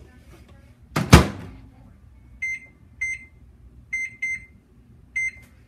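Citizen microwave oven door shut with a loud clack about a second in, then five short, high keypad beeps as its buttons are pressed, two of them close together.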